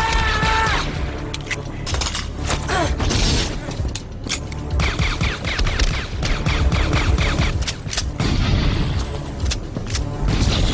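Film gunfight soundtrack: a long string of pistol shots and heavy shotgun blasts, many cracks in quick succession throughout, over a dramatic film score.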